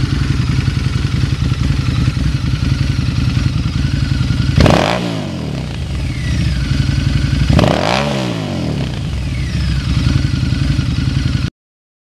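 Harley-Davidson V-Rod Muscle's liquid-cooled Revolution V-twin idling through Vance & Hines Competition Series slip-on mufflers. The throttle is blipped twice, about three seconds apart, the engine note rising sharply and falling back to idle each time. The sound cuts off just before the end.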